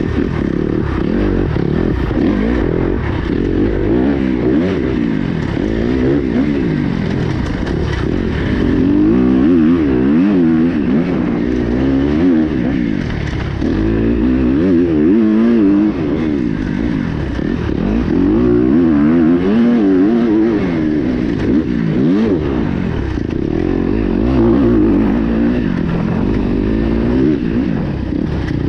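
Kawasaki KX250X dirt bike's 250cc four-stroke single-cylinder engine, heard from on the bike while it is ridden hard. The revs rise and fall every second or two as the rider works the throttle and gears.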